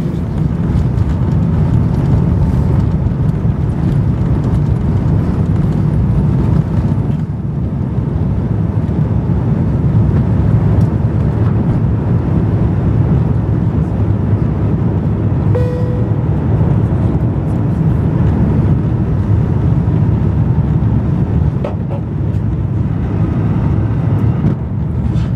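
Engine and airflow noise of an Airbus A350-900 with its Rolls-Royce Trent XWB engines at takeoff thrust, heard inside the cabin: a loud, steady, deep rush through the takeoff roll, liftoff and initial climb.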